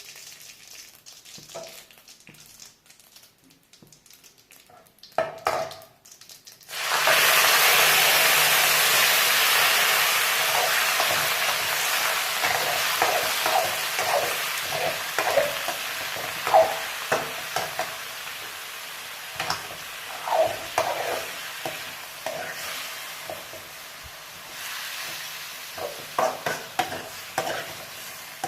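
Food dropped into hot oil in a pan, starting a loud sizzle that fades gradually, while a spoon stirs and scrapes the pan.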